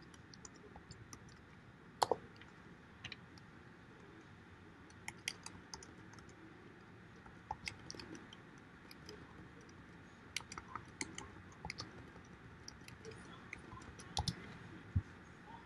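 Faint, irregular clicks and taps of typing on a computer keyboard, with a sharper click about two seconds in.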